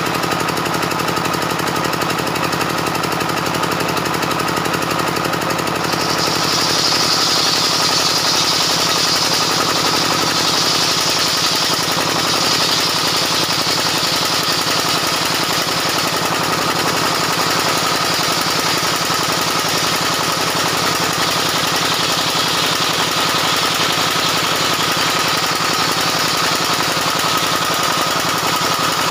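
Homemade belt-driven bench circular saw with a 24-inch blade running steadily. About six seconds in, a louder high hiss joins the hum as the blade rips a plank lengthwise off a timber beam, and it carries on steadily.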